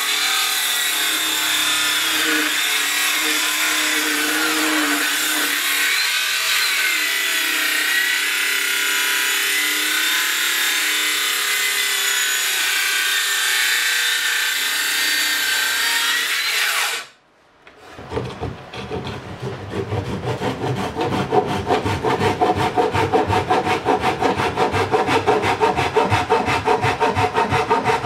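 Makita circular saw running and cutting into a softwood stud, a steady whine and rasp that cuts off suddenly after about seventeen seconds. After a second's pause, a hand saw cuts through wood in quick, even back-and-forth strokes.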